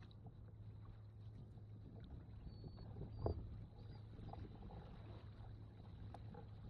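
Canoe paddle strokes in calm water: faint dips and drips from the paddle, with one louder splash about three seconds in.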